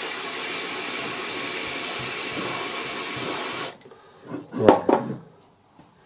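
Aerosol contact cleaner sprayed through a straw nozzle onto a washing machine motor's armature and commutator: one steady hiss for about three and a half seconds that cuts off suddenly.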